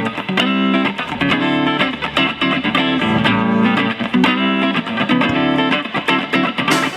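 Electric guitar playing a rhythmic riff that opens a live blues-rock song, with sharper strokes joining near the end.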